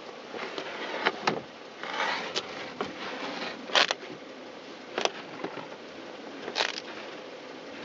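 Snow and packed ice being scraped and chipped away by hand from around a stuck car's front tire: a run of short, irregular scrapes and knocks over a steady background hiss.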